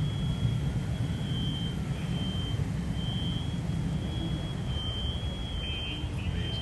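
Steady low rumble of a swollen river tributary in flood, its water rushing past the bridge. A thin high steady tone comes and goes over it.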